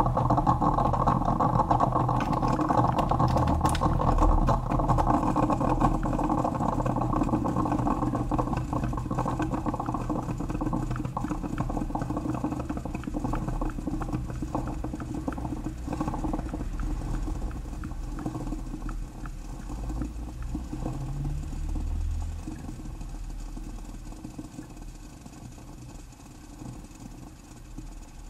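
Electric coffee maker running with a dense crackling sputter and a low hum. The hum stops about 22 seconds in, and the sputter slowly dies away towards the end.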